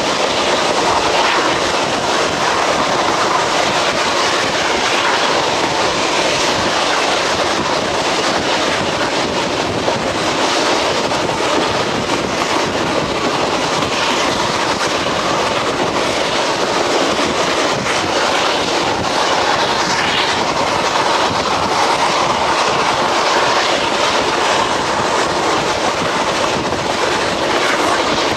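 Passenger railroad coach rolling along the track: steady wheel and track noise with the clickety-clack of wheels passing over rail joints.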